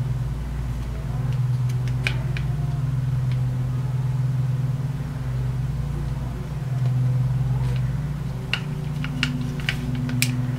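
A steady low hum runs throughout, with a few light clicks and taps as battery connector leads are fitted onto a UPS battery pack by hand, most of them close together near the end.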